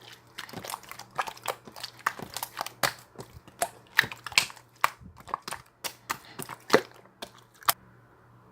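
Slime being squeezed and pressed by hand, giving rapid, irregular crackling pops and clicks that stop shortly before the end.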